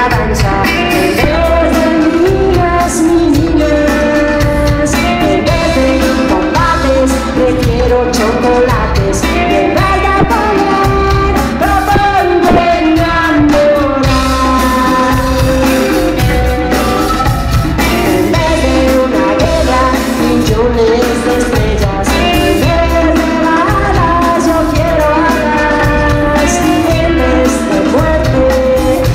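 Live rock band playing: electric guitars and a drum kit, with a woman singing lead vocals.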